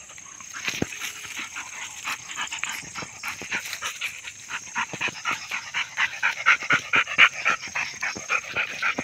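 German Shepherd and Labrador panting hard from exertion after rough play, a quick rhythmic panting that grows louder in the second half, with scuffling on dry grass.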